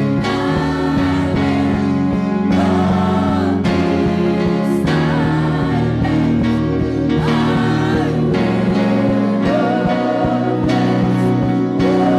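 Live gospel worship music: voices singing sustained, wavering melodic lines over held instrumental chords, at a steady full level.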